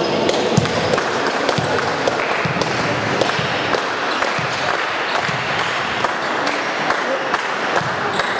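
Indoor volleyball play: many short, sharp slaps and thuds of the ball and players' feet over a steady murmur of spectators' voices, echoing in a large sports hall.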